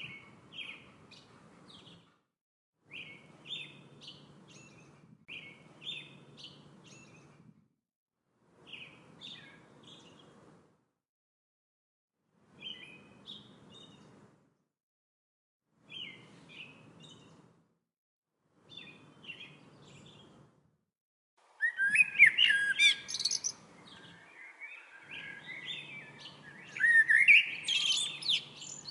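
Songbirds chirping in short phrases every second or two, separated by brief dead silences. About two-thirds of the way in the song turns louder and fuller, with quick rising whistled notes.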